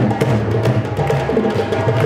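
Live percussion: congas and other hand drums playing a steady, driving rhythm for the dancers.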